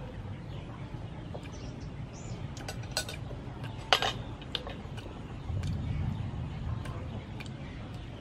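A metal spoon clinking a few times in short, sharp clicks, the loudest about four seconds in, over a low steady hum.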